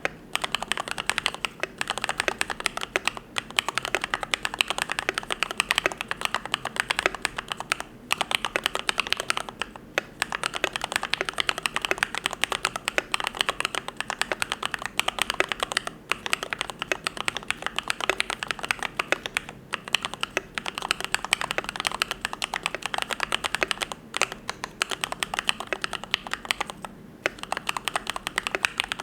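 Continuous fast typing on a YMD75 V3 custom mechanical keyboard with lubed Gateron Yellow linear switches: a dense stream of keystroke clacks, with brief pauses now and then.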